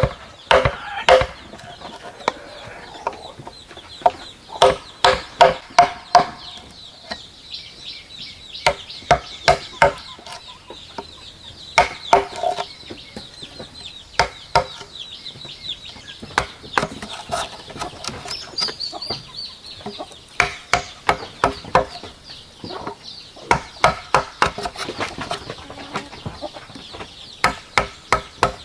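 Wooden mallet knocking a chisel through the wall of a green bamboo tube, in short runs of quick sharp strikes with pauses between.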